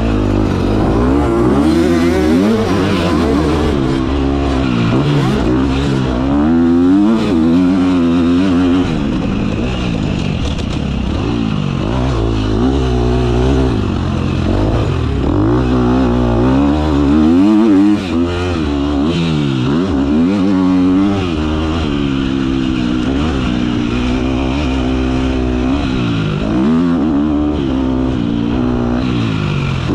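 Dirt bike engine under hard riding, heard close from on board: the pitch climbs and drops over and over as the throttle is opened and shut through the corners and straights, with a brief dip about two-thirds of the way through.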